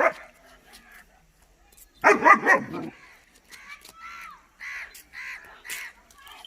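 German Shepherd puppy barking: one sharp bark at the start, then a loud burst of several barks about two seconds in, followed by fainter short calls.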